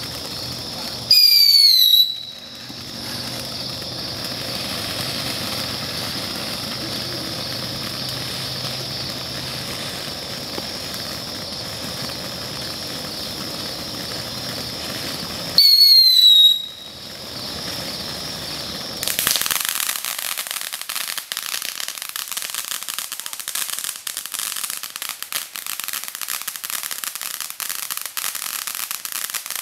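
Ground fountain firework burning with a steady hissing spray, broken twice by a loud whistle that falls in pitch. About two-thirds of the way through, the hiss gives way to dense crackling.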